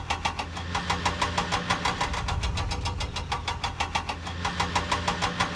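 A heavy vehicle's engine running steadily, with an even, rapid chugging of about ten beats a second over a low hum.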